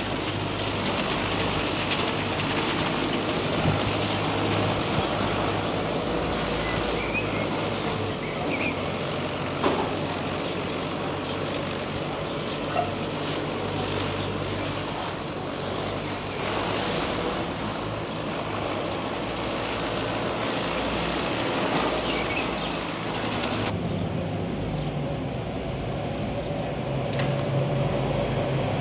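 City street ambience: a steady wash of traffic noise with a low hum. Its character changes abruptly about 24 seconds in, as the higher hiss drops away, and the low hum grows louder near the end.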